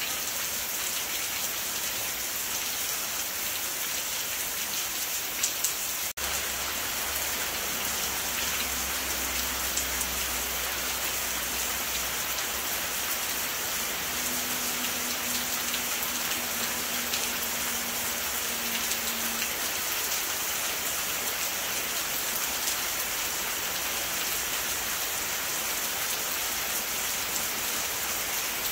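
Steady rain falling, with a brief dropout about six seconds in.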